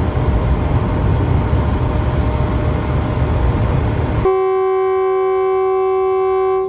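Loud, steady rumble of a diesel locomotive, then about four seconds in a single steady blast of the locomotive's horn, held for a couple of seconds and cut off sharply.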